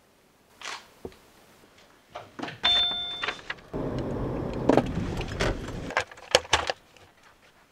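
A string of short sounds: a brief steady electronic beep, then the low rumble of a car's cabin while driving, then a clatter of sharp knocks as camera gear is loaded into the back of the car.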